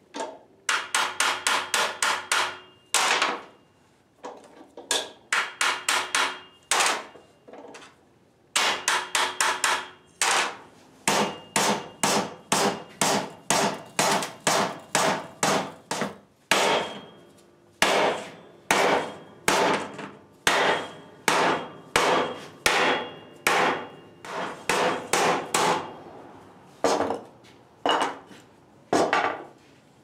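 A hammer strikes the edge of a sheet-metal panel clamped under angle iron, bending the edge over by hand in place of a sheet metal brake. The blows come in runs of quick strikes with short pauses between them, and each strike rings metallically.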